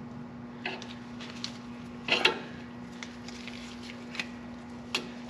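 Scattered metallic clicks and clinks of tools and brake caliper parts being handled, about seven in all, the loudest a quick pair about two seconds in, over a steady low hum.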